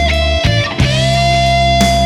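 Background music: electric guitar rock instrumental with bass and drums, a sustained guitar note bending up about halfway through.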